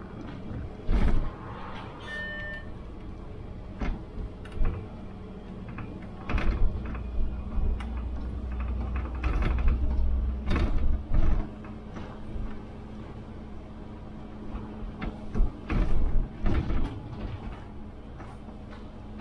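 Inside a city bus: a steady hum with scattered knocks and rattles, a single short electronic beep about two seconds in, and a heavier low rumble from about six to eleven seconds in.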